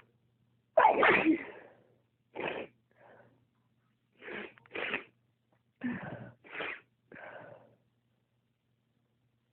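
A woman sneezing over and over in a fit: one loud sneeze about a second in, then a run of about seven shorter, quieter sneezes and breaths. It is a sneezing spell that she says comes on when her toes get cold.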